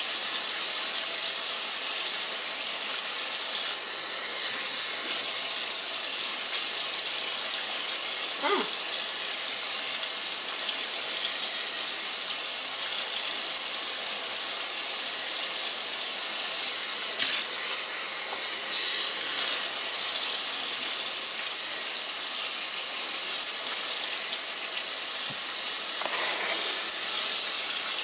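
Bathroom sink tap running in a steady stream of water, with an even hiss and no break.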